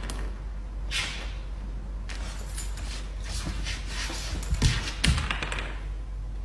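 A puppy moving on a wooden floor: a few soft thumps and taps, spaced irregularly, over a steady low hum and hiss.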